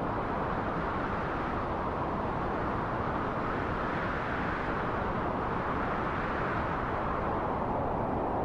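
Wind blowing steadily as a deep, even rush, swelling a little around the middle and then easing back.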